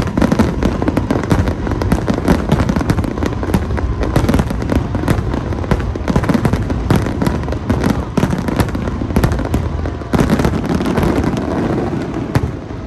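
Aerial fireworks bursting in a dense, rapid barrage of overlapping bangs and crackles over a low rumble, ending with a last sharp crack near the end.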